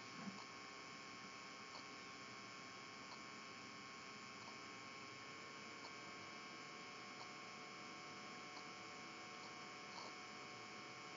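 Near silence: the faint steady hum and hiss of the recording's noise floor, with very faint ticks at regular intervals of about a second and a half.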